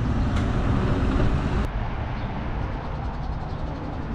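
A tour coach driving past, a steady low rumble of engine and tyres. About a second and a half in, it gives way abruptly to quieter steady background noise.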